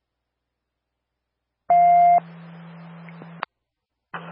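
Police scanner radio: silence, then a transmission opens with a loud single beep lasting about half a second. The channel stays keyed with a steady hum and faint hiss but no voice, and cuts off with a squelch click about a second and a half later.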